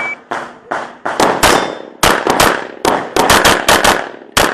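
Rapid string of handgun shots, about fifteen in four and a half seconds, often fired in quick pairs, each with a short ringing echo. An electronic shot timer's start beep ends just at the beginning.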